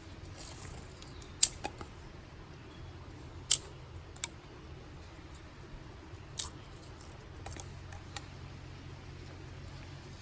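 Dry sticks and twigs snapped by hand, giving a series of sharp cracks at irregular intervals, about eight in all, the loudest near the start and in the middle.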